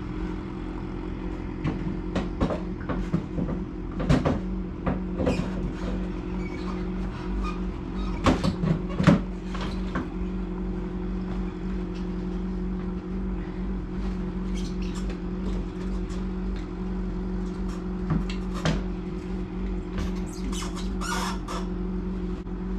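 Scattered knocks and clanks of metal parts being handled as a snowmobile's rail suspension is worked into its track. The loudest is a cluster of sharp knocks about eight to nine seconds in, over a steady low hum.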